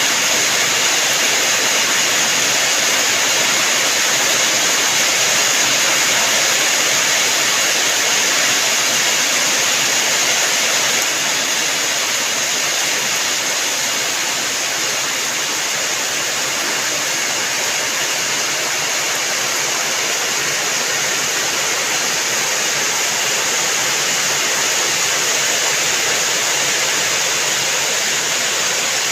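Steady heavy rain: a continuous even hiss of falling water, easing slightly about eleven seconds in.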